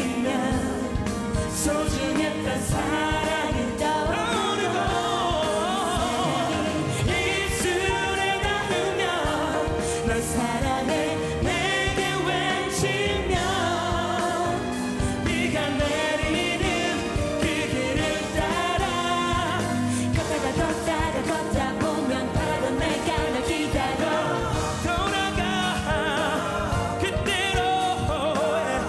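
Male lead singer performing a pop ballad live, backed by a string section of violins and cellos, piano and a band with drums.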